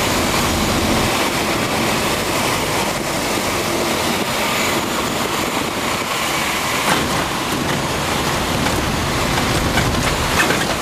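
Cabin noise of a Piper PA-28 light aircraft landing on a grass strip: the engine and rushing air make a steady noise, joined by the wheels rolling over the grass, with a few brief knocks near the end as it rolls out.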